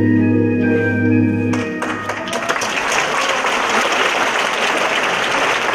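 A song's backing music holds its final chord, which ends a little under two seconds in, and then a theatre audience applauds steadily.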